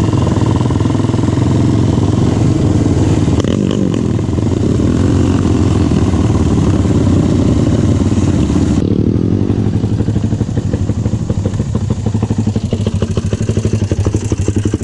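Can-Am DS 450 quad's single-cylinder four-stroke engine running as it rides. About nine seconds in the throttle eases off and the engine drops to a slower, pulsing putt.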